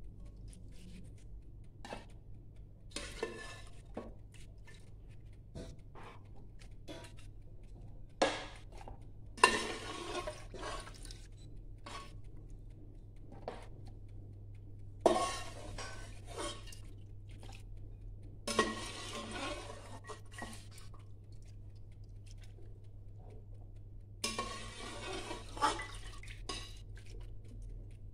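A metal slotted spoon scraping and clinking against the rims of a steel stock pot and a nonstick pot as chunks of boiled meat are lifted out of broth and dropped in, with short wet splashes of dripping broth. The clinks are scattered irregularly, with several splashier stretches about a second long.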